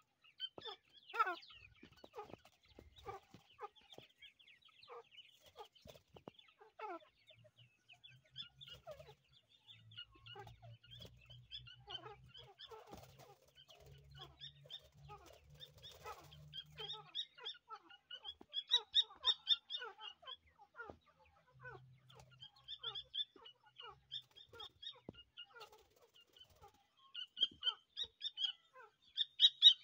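Irani partridge chicks cheeping: many short, high peeps with a few falling calls mixed in, busier and louder in bursts about two-thirds of the way through and near the end.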